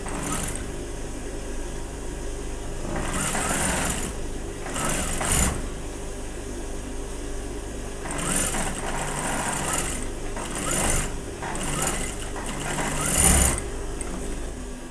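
Industrial single-needle sewing machine topstitching a seam in cotton fabric: several short runs of stitching, a second or so each, with the machine's motor humming steadily in between.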